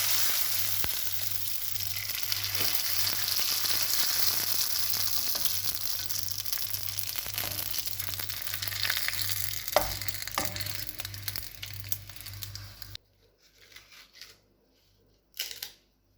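Rice paper frying in hot oil: a dense, steady sizzle that slowly dies down, with a few sharp clicks a little past the middle. After a sudden cut near the end, a few short crisp crackles of the fried, crunchy rice paper.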